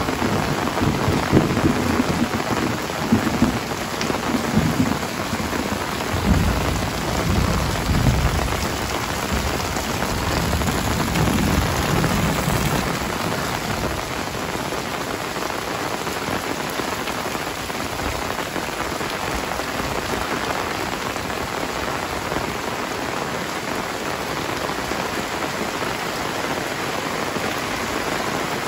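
Heavy rain falling steadily on tiled roofs, wet concrete lanes and foliage, with water running off the eaves. A low rumble comes and goes through the first dozen seconds, then the rain goes on alone.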